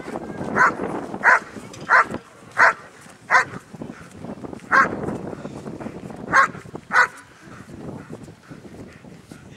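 German Shepherd barking at a protection-trial helper while guarding him: about eight sharp barks, one roughly every 0.7 s, with a short pause in the middle.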